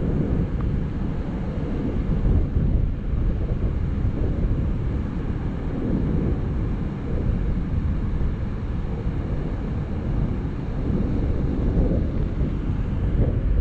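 Wind buffeting the microphone outdoors, a steady low rumble that swells and eases with the gusts.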